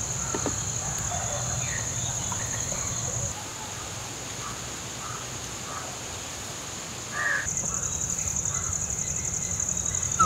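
Outdoor ambience: a steady high-pitched buzz of insects that drops out about a third of the way in and comes back near the end, with a few faint, short bird chirps and a low steady hum underneath.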